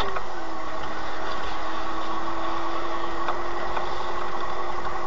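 Steady drone of a car driving slowly, heard from inside the cabin: an even engine hum with road noise and a few faint ticks.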